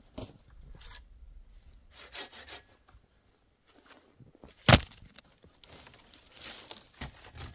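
Corona RazorTOOTH pruning saw cutting through a snow-covered branch in short, uneven strokes, with one loud sharp crack about two-thirds of the way through.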